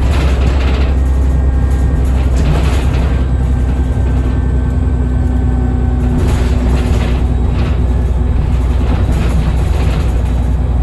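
Cummins ISBe diesel engine of a Transbus Trident bus running with a steady low rumble, with a faint high whine from the turbocharger over the first half.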